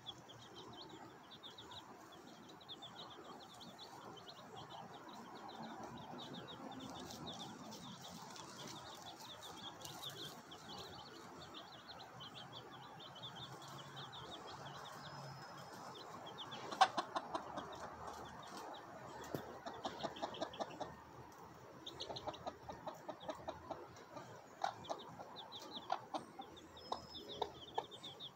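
Mother hen clucking to her brood of chicks: a run of short, repeated clucks starting about two-thirds of the way in, over a steady high chirping.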